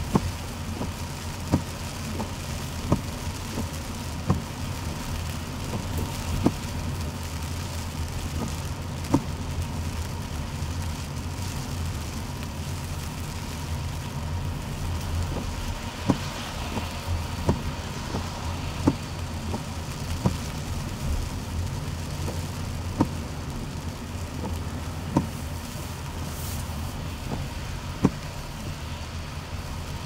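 Heard from inside a car driving on a wet road in the rain: a steady low rumble of engine and tyres under a light hiss. Sharp ticks cut through it, at times evenly about every second and a half, at times irregular.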